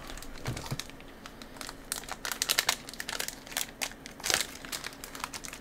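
Crinkling of plastic candy packaging handled in the hands: a DIY water-candy kit's packets, with a thick run of sharp crackles in the middle.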